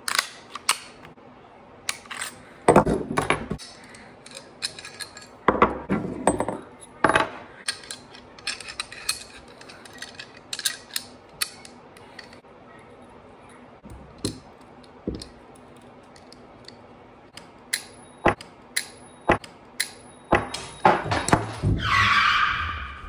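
Semi-automatic pistol being field-stripped by hand: an irregular run of sharp metal clicks and clacks as the slide is worked off and the recoil spring, guide rod and other parts are handled and set down on a wooden table. Near the end a short added sound effect with a sweeping pitch comes in.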